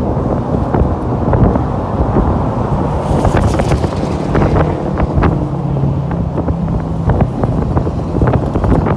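Loud rumbling noise with wind buffeting the microphone, scattered with short knocks and clicks; it cuts off abruptly just after the end.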